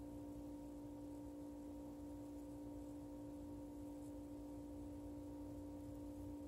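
A steady, unchanging hum with a faint low rumble underneath.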